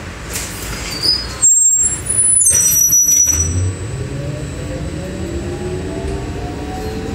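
Trolleybus cabin: a loud release of compressed air lasting nearly two seconds, then the electric traction motor's whine rising steadily in pitch as the trolleybus pulls away from the stop.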